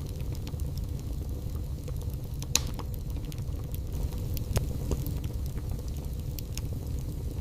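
Wood fire burning in a fireplace: a steady low rumble with scattered small crackles and a couple of louder pops, one about two and a half seconds in and another near the middle.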